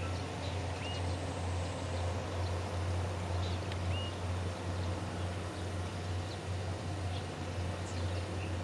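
A steady low hum, with a few short high chirps about one and four seconds in.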